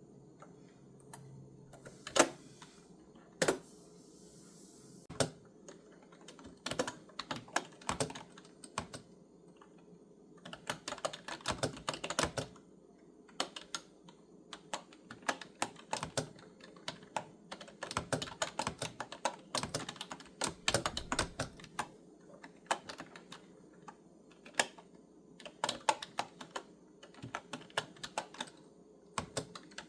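Typing on a clicky keyboard: a few scattered keystrokes at first, two of them louder, then from about a third of the way in, quick runs of keystrokes broken by short pauses.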